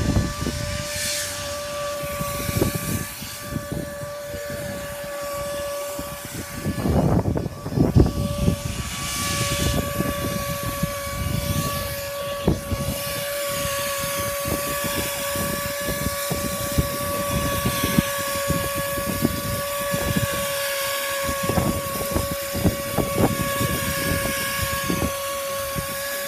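Spray equipment for a chopped-fiberglass fluid-applied roofing coat running with a steady whine that holds one pitch throughout, with irregular gusts of wind rumbling on the microphone.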